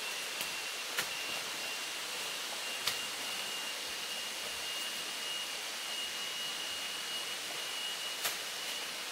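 Tropical forest ambience: a steady high hiss with one thin, steady insect tone held throughout, and three short sharp snaps from footsteps in the leaf litter.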